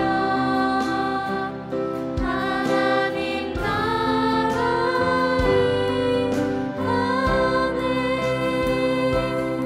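A small group of female worship singers singing a Korean praise song into microphones, with long held notes over instrumental accompaniment.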